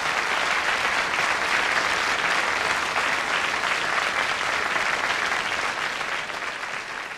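A crowd applauding: dense, steady clapping that dies down a little near the end.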